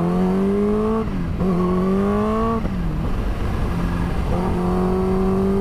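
Motorcycle engine accelerating through the gears, with wind rushing past. Its note climbs, drops at a gear change about a second in, climbs again and drops a second time near the middle, then holds a steady pitch.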